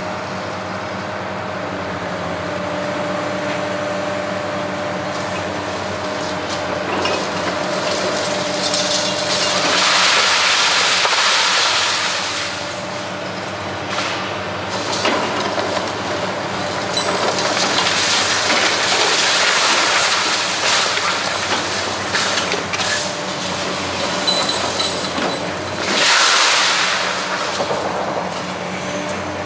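High-reach demolition excavator's diesel engine running steadily while its hydraulic crusher jaws bite through a reinforced-concrete floor slab. The crunching of breaking concrete and falling rubble comes in three long swells, around ten, eighteen and twenty-six seconds in.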